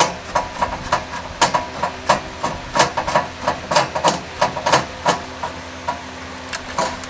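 Metal parts of a gas fire pit clinking and knocking as they are handled during reassembly: rapid, irregular metallic clicks and taps, thinning out near the end.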